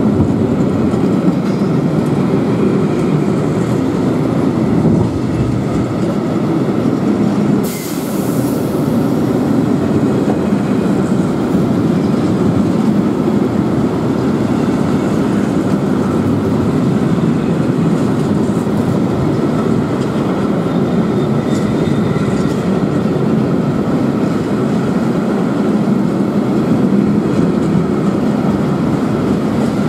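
Freight train of loaded container flat wagons rolling past: a steady rumble of wheels on rails, with a short high hiss about eight seconds in.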